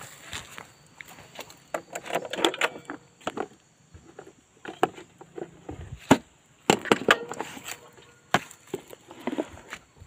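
Irregular clicks, knocks and rustling of things being handled in a scooter's under-seat storage compartment as a plastic jar is taken out, in sharp clatters bunched about two seconds in and again about seven seconds in.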